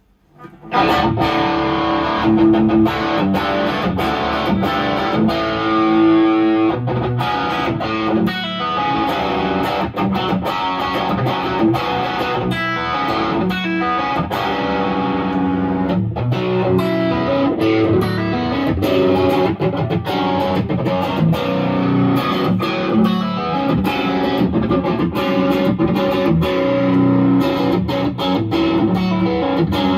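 Strat-style electric guitar with a Suhr ML pickup set played continuously through a gain pedal and amp, with an overdriven tone; the playing starts about a second in.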